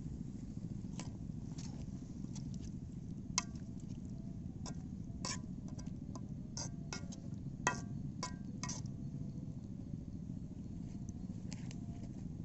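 Scattered light clicks and short metallic clinks, some ringing briefly, over a steady low rumble.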